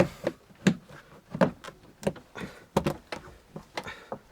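Plastic trim-panel clips of a Lada Kalina door snapping into their holes as the door card is pressed on by hand: a dozen or so sharp, irregular clicks and knocks of plastic on the door.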